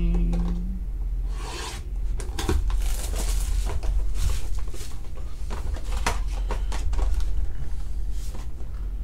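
Cardboard and plastic wrap of a trading-card hobby box rubbing and scraping as it is handled and opened by hand, in a run of short scrapes starting about a second and a half in.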